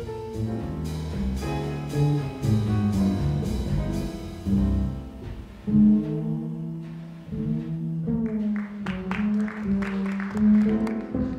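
Live jazz trio of acoustic grand piano, upright double bass and drum kit playing an instrumental passage. Cymbal strokes keep time through the first half, and a run of sharp drum and cymbal hits comes near the end.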